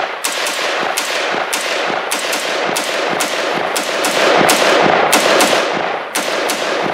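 Colt LE6945 AR-15 pistol with a 10.3-inch Mk 18 barrel firing 5.56 mm rounds in rapid semi-automatic fire, a steady string of about three shots a second.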